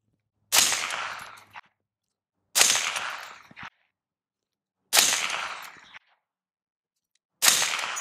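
Four suppressed .223 rifle shots, about two to two and a half seconds apart, from a 16-inch mid-length AR-style rifle fitted with a Liberty Agent 5.56 silencer. Each sharp report trails off over about a second. Every shot measures under 140 dB, about 30 dB quieter than unsuppressed.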